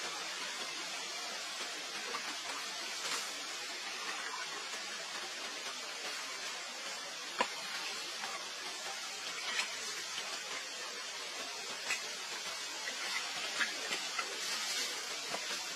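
Steady rain: an even hiss with scattered small drip-like ticks, one sharper tick about halfway through.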